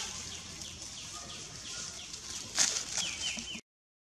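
Baby monkey crying in a quick run of short, high, falling squeaks, about four a second, with a brief louder rustle about two and a half seconds in. The sound cuts off suddenly shortly before the end.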